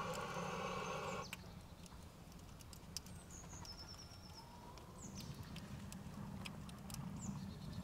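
Aerosol spray blown through a lighter flame into a metal wood stove, a hiss that stops about a second in; then faint crackling of the kindling catching fire, with a few bird chirps.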